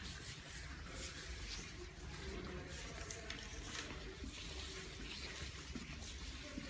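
Brushes and markers on long sticks scraping and swishing across a large paper sheet laid on the floor, a steady scratchy hiss of overlapping, irregular strokes.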